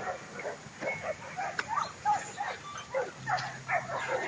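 Dutch Shepherd puppies at play giving a rapid string of short, high yips and barks, many dropping in pitch.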